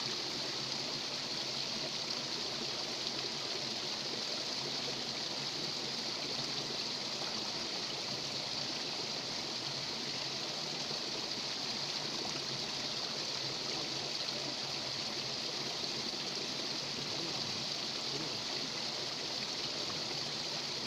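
Water pouring over a small river weir and splashing into the pool below, a steady even rush with no change.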